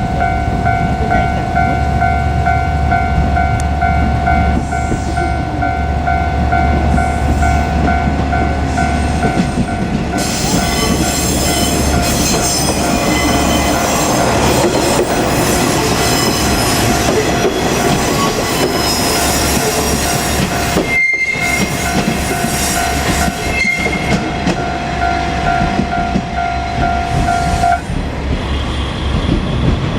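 Japanese level-crossing warning bell ringing in a steady rapid repeating pattern as a JR KiHa 47 diesel railcar set passes over the crossing. From about ten seconds in, the railcar's engine and wheels add a loud rushing noise. The bell stops near the end, once the train has cleared.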